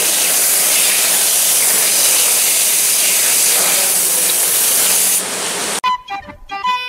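Hose spray nozzle running water over squid in a plastic basket, a steady hiss of rinsing. It cuts off about six seconds in, and music with an accordion-like melody starts.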